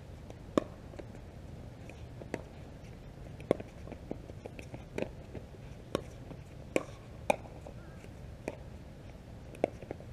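Pickleball rally: hard paddles striking a plastic pickleball, a string of sharp pops about one every second at an uneven pace, some louder than others.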